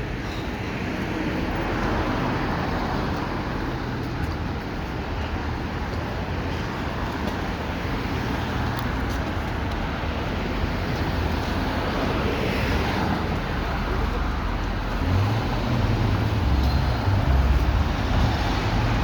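City street traffic: a steady wash of passing road vehicles, with a heavier low engine rumble building and growing louder near the end.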